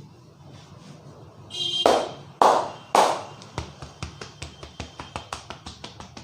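Hands striking in a head and upper-body massage: three loud slaps about half a second apart, then a quick run of lighter, even taps at about four a second, growing softer.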